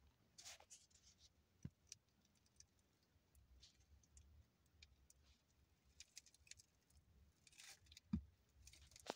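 Near silence, broken by faint scattered clicks and short rustles of a phone being handled, with a soft knock about eight seconds in.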